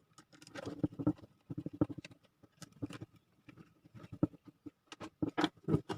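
Irregular clicks, taps and knocks of a circuit board and its wiring being handled and fitted onto a voltage stabilizer's chassis.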